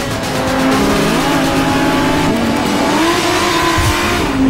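Race car engines running at high revs, several pitches gliding up and down over a steady noisy rush.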